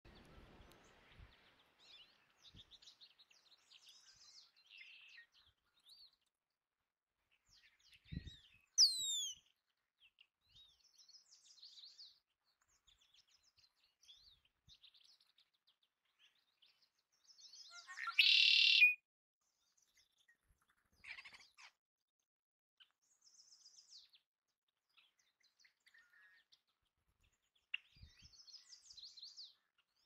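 Birds chirping faintly and on and off, with a sharp falling whistle about nine seconds in. About eighteen seconds in comes one loud, drawn-out squeak from a Belding's ground squirrel.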